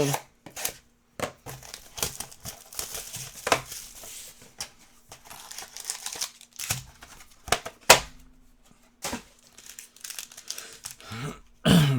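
Trading-card packaging being torn open and handled: irregular crinkling and tearing of plastic and foil wrappers, with sharp snaps and clicks, denser for a couple of seconds early on.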